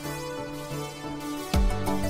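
Background music of held notes, with a heavy drum beat coming in about one and a half seconds in.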